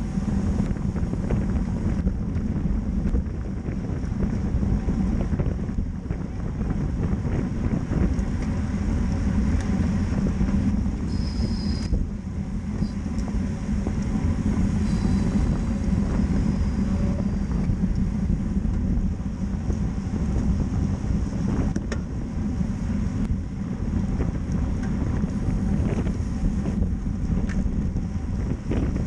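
Steady wind noise buffeting the microphone of a bicycle-mounted camera, with the rider at about 29 mph in a racing pack.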